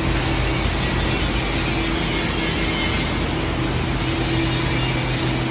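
Steady machinery drone in a metal fabrication shop: a constant low hum under an even rushing noise, with no breaks or changes.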